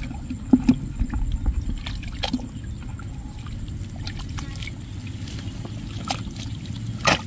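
Hands groping through thick mud and shallow muddy water, squelching and sloshing in scattered small splashes over a steady low rumble, with one louder splash near the end.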